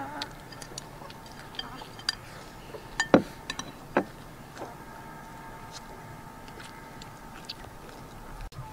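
Chopsticks clicking and scraping against a ceramic rice bowl during a meal. A few sharp clinks, the loudest a pair about three seconds in and another a second later, then only light taps.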